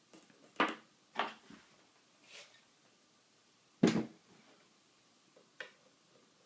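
A handful of separate knocks and clunks as the ISSC Mk22 rifle and tools are handled and bumped on a tabletop, the loudest about four seconds in.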